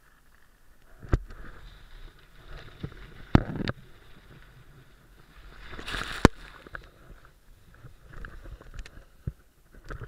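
Skis sliding and scraping on packed snow, heard through an action camera, with sharp knocks a little after one second and twice at about three and a half seconds. Around six seconds in, a rush of snow builds and ends in a hard thud as the skier tumbles.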